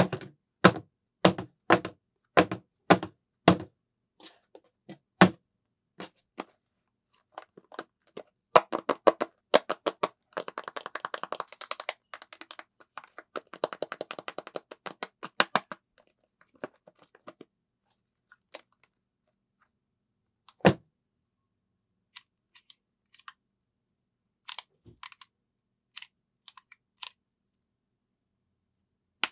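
A small cardboard product box handled up close: a run of sharp knocks about half a second apart at the start, then several seconds of rapid fingernail tapping and scratching on the box. Later, one loud thump and scattered small clicks.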